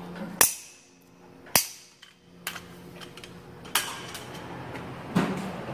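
Two sharp metallic snaps about a second apart, then a couple of lighter knocks, as a torque wrench and other tools are worked on a front axle hub nut.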